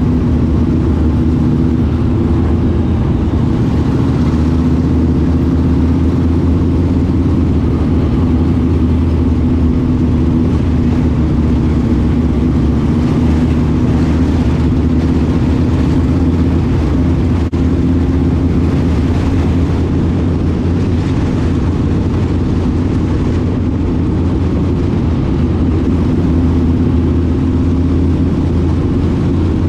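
Limited modified race car's fresh V8 engine, heard from inside the cockpit, running at a steady moderate speed with no hard revving, as when circling at caution pace.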